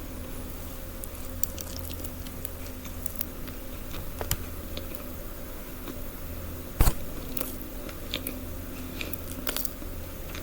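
A person chewing and biting crunchy food close to the microphone: scattered crisp crackles, with one loud bite a little before seven seconds in, over a steady low hum.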